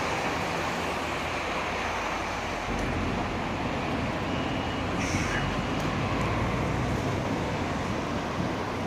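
Street traffic noise around a standing Hess articulated trolleybus: a steady rumble and hum that deepens about three seconds in. A brief high hiss comes about five seconds in.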